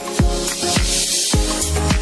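Electronic dance music: a kick drum about twice a second under sustained chords, with a bass line coming in near the end.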